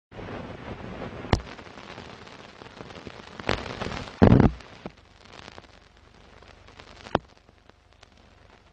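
Old film-leader crackle: a hiss of surface noise with scattered sharp pops and clicks, and one louder crackling burst about four seconds in. The crackle turns fainter from about halfway through.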